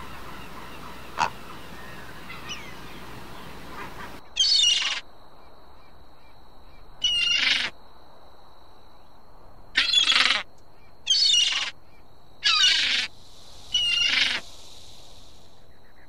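Lewis's woodpecker giving six short, harsh calls, each under a second, spaced one to three seconds apart, over a steady thin high tone in the background. Before them, a northern flicker's fainter calls, with one sharp note about a second in.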